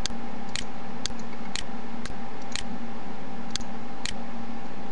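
Computer mouse button clicking: a series of sharp clicks, about two a second with a longer gap near the middle, each click placing a pen-tool mask point, over a steady hum and hiss.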